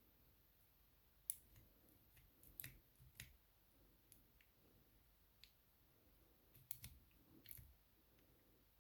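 Scattered faint clicks and small metal taps from working a dimple lock cylinder in a vise, trying to draw out its hollow core with the key. There are a few separate ticks, several seconds apart, with near silence between them.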